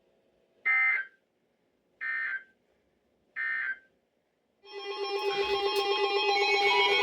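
Emergency Alert System SAME header: three identical half-second bursts of warbling, buzzy data tones, about a second and a half apart. These mark the start of a new alert. From about five seconds in, a loud, steady multi-tone signal follows, the start of the alert's attention tone.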